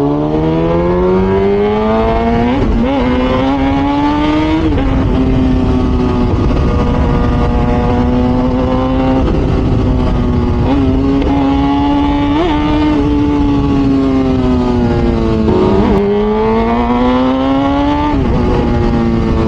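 Kawasaki ZX-6R four-cylinder sport-bike engine with a FullPro aftermarket exhaust running under load while ridden. The pitch climbs over the first few seconds and drops slightly at what looks like a gear change. It then holds a fairly steady cruise, eases off about three-quarters of the way through, and pulls up again.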